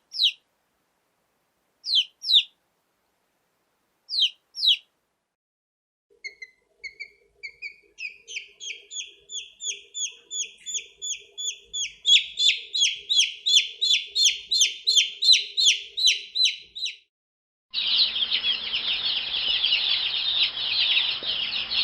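Baby chicks peeping. First come pairs of short, falling chirps about two seconds apart. Then a steady run of peeps, about three a second, climbs in pitch and grows louder, and in the last few seconds a dense chorus of many chicks peeps at once.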